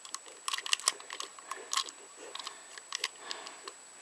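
Small plastic clicks and taps from handling N gauge model train carriages while their fiddly couplers are pushed together, in irregular clusters.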